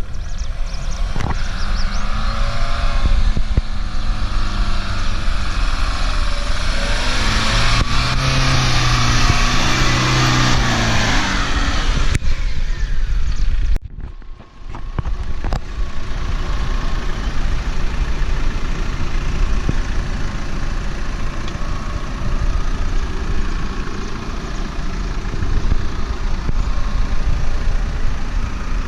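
Off-road 4x4 engine revving, its pitch rising and falling over the first dozen seconds. After a short break about 14 seconds in, a steady vehicle rumble with no clear engine note continues.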